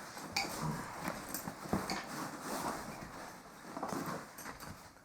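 Handling noise from a Tamrac Corona 26 camera backpack being moved about: fabric rustling with scattered small knocks and clicks.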